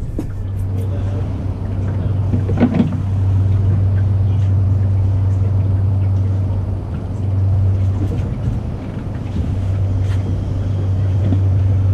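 A boat motor running with a steady low drone that swells and eases slightly, with a brief knock about three seconds in.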